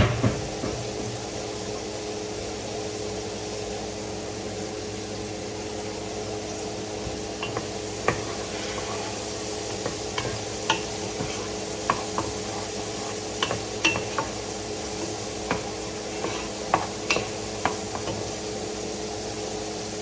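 A utensil stirring in a pan of sizzling food, clinking against the pan again and again at irregular moments, over a steady hum. A single knock right at the start.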